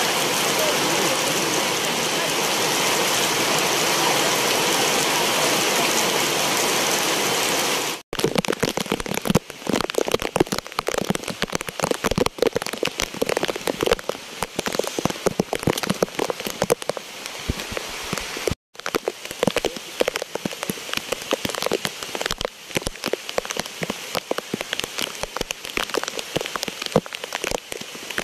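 Heavy rain: at first a steady, even hiss of downpour. After a brief cut about eight seconds in, it becomes a dense patter of separate drops striking a surface close by, broken once more by a short cut.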